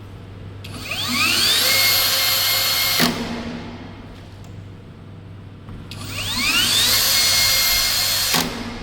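Dekton 21V cordless drill's motor triggered twice, each time spinning up with a rising whine to a steady high speed, running for about two seconds, then cutting off.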